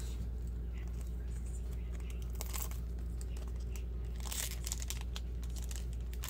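Dragoborne trading-card booster pack wrapper being crinkled and torn open by hand, in a few short crackling bursts, the loudest about four seconds in, over a steady low hum.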